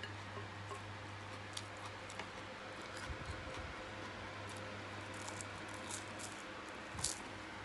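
Faint crackles and small clicks from a crisp air-fried croissant being pulled apart and eaten, with one slightly louder tap about seven seconds in, over a steady low hum.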